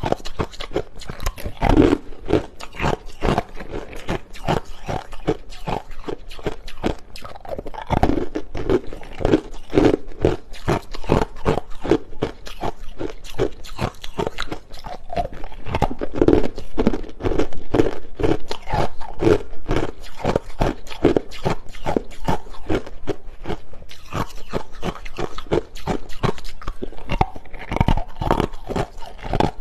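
A person biting and chewing hard crushed ice close to the microphone: a dense, irregular run of loud crunches, several a second.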